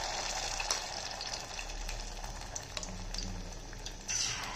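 Marinated chicken 65 pieces sizzling as they are dropped into hot oil to deep-fry, the sizzle surging again about four seconds in as another piece goes in. A few light clicks of a spoon against the pan.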